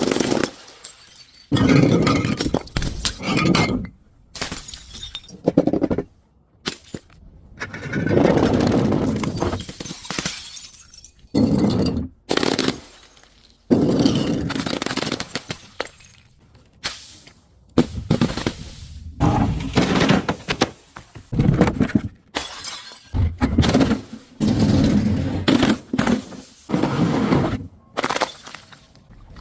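Glass bottles smashing and shattering over and over, a quick run of separate crashes, each with a crunch and tinkle of breaking glass, starting and stopping abruptly.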